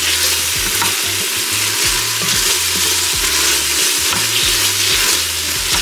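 Sliced onions sizzling in hot oil in the stainless inner pot of an electric pressure cooker on sauté, stirred and scraped across the pot bottom with a spatula, with small scraping clicks through the steady sizzle.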